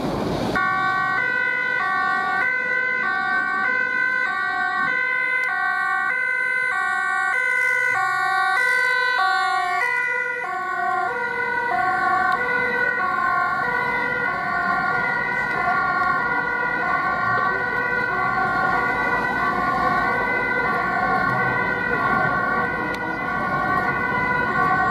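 Dutch ambulance two-tone siren, stepping between a high and a low note about twice a second. From about 8 seconds in, a second two-tone siren sounds out of step with it, as more ambulances leave under blue lights.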